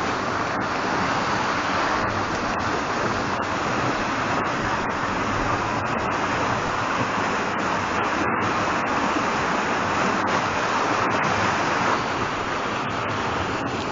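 Swollen river in flood, its water rushing in a loud, steady wash of noise that eases a little near the end.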